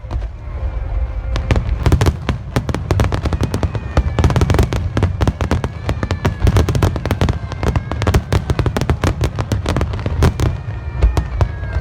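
Fireworks display: a dense, continuous barrage of shells bursting, with deep booms under rapid crackling reports several times a second.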